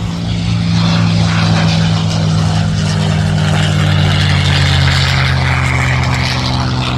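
Propeller-driven airplane passing close by: the steady, loud drone of its piston engine and propeller wash, growing louder over the first second and easing a little near the end.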